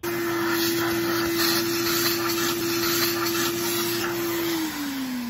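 Vacuum cleaner with a hose and wand running steadily, its motor giving a steady hum over the rush of suction. Near the end its note falls in pitch and it gets quieter as the motor winds down.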